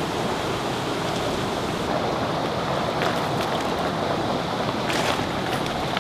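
Water rushing and churning steadily below a dam, with a short burst of louder noise about five seconds in.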